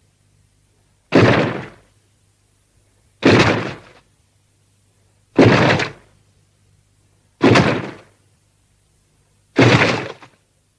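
Hedorah monster sound effect: a heavy slamming impact repeated five times, about two seconds apart, each one sudden and dying away within about half a second.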